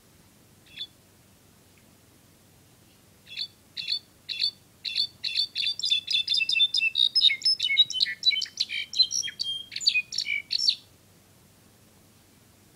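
A young jilguero, held in the hand, calls. There is one chirp, then after a pause a run of short chirps that speeds up into fast twittering for about seven seconds and then cuts off.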